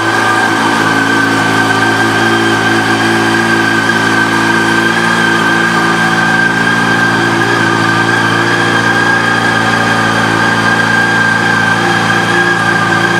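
2013 Yamaha FZ8's inline-four engine idling steadily through an aftermarket exhaust, with no revving.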